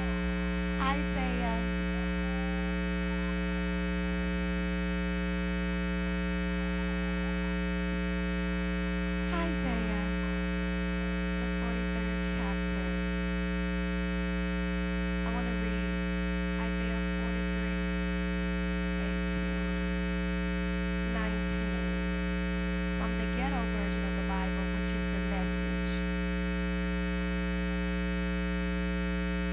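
Steady electrical hum with many overtones, strongest in the low range, with faint voices now and then.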